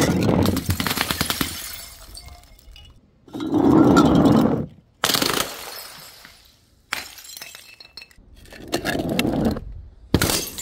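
Glass bottles and jars smashing in a series of sudden crashes, about one every one to two seconds, each followed by a clatter of falling shards.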